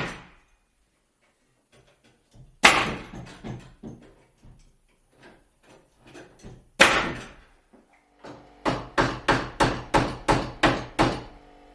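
Hammer blows on wood: two heavy single strikes with lighter taps between them, then a quick run of about nine even strikes near the end, roughly four a second.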